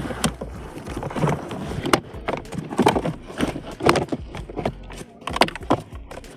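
Irregular clicks and knocks of hand work on a car's dashboard: parts and tools being handled and set in place.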